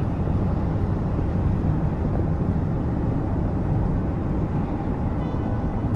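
Steady low rumble of a car driving at highway speed, road and engine noise heard from inside the cabin.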